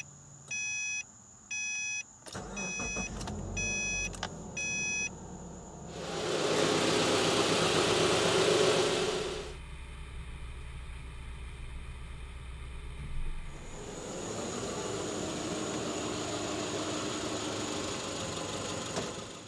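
A car's warning chime beeps about seven times in the first five seconds as the 2010 Subaru Impreza's flat-four engine is started. The engine then runs, with a louder rush for a few seconds in the middle, and settles to a steady idle.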